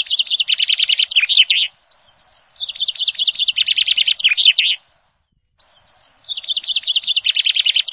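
Birdsong track looped in the background: the same phrase of rapid high chirps, each under three seconds long, repeats about every three seconds with dead silence between repeats.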